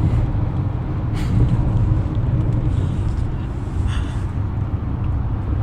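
Car cabin noise while driving at speed: a steady low rumble of engine and tyres on the road, with a couple of brief clicks, about a second in and again near four seconds.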